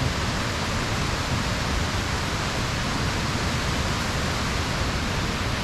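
Waterfall: a steady, even rushing of falling water.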